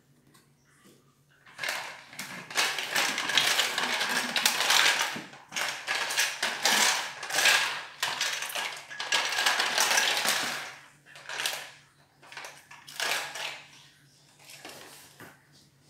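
Hollow plastic toy ball clattering and scraping across a tiled floor as a puppy noses and bites at it. The rattling goes on almost without a break for several seconds, then comes in a few shorter bursts near the end.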